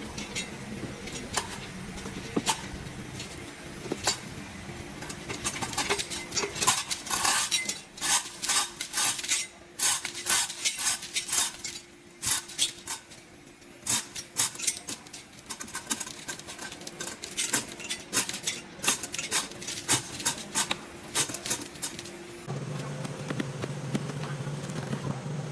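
Irregular metallic clinks and taps of tools and metal parts being handled, thickest through the middle, over a faint steady hum.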